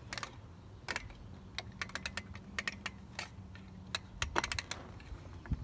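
A run of irregular sharp clicks and ticks, with a faint steady low hum under the middle part.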